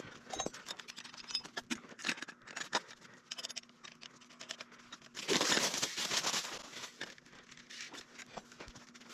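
Crinkling, scattered clicks and rustling as cable is handled and spooled by hand. About five seconds in there is a louder rasping scrape lasting over a second.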